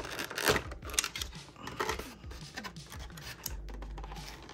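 Clear plastic blister packaging crackling and creaking as fingers pry at it to pop out trading cards. The crackles are densest in the first two seconds, with a few short squeaks, and thin out toward the end.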